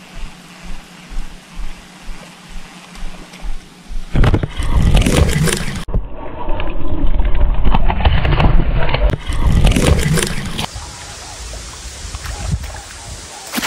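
Low rhythmic knocking about two to three times a second over a faint hum. From about four seconds in, loud rumbling handling noise on the microphone as the camera is moved, easing to a lower steady rustle near the end.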